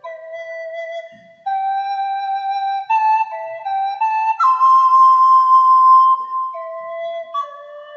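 Background music: a slow solo flute melody stepping between held notes, with one long note held for about three seconds in the middle.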